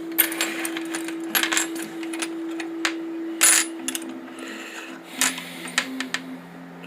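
Loose metal wrenches clinking and clattering against one another as they are picked through and sorted, a quick run of sharp metallic clinks, over soft background music with held notes.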